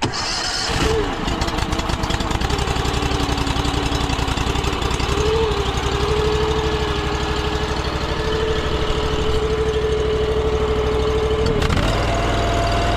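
Gas-engine pressure washer running steadily with a whining tone, which shifts to a higher, steadier pitch after a brief dip about a second before the end.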